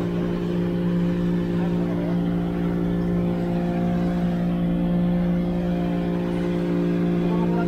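Motorboat engine running at a steady speed: an even, unchanging hum.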